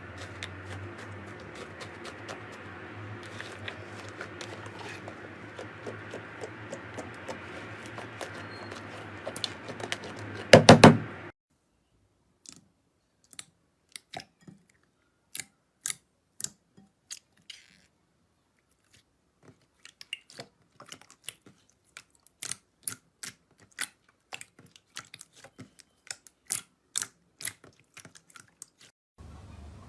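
Slime being squeezed and poked, giving sharp sticky clicks and pops, at first over a low steady hum. About a third of the way in comes a loud cluster of pops; then the background drops out and separate clicks follow, coming faster toward the end.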